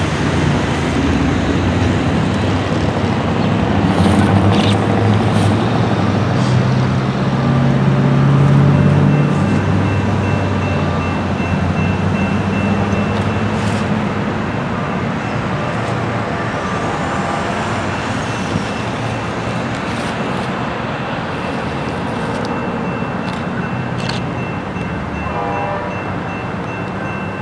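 Motor traffic: a low engine rumble that swells about 4 to 9 seconds in and then eases off, over a steady traffic hum. A faint, thin high tone runs from about nine seconds in.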